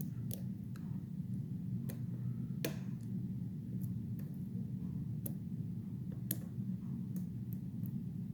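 Lock pick working the pins of a Bilock-clone lock: small, sharp, irregular clicks, about one or two a second, over a steady low hum.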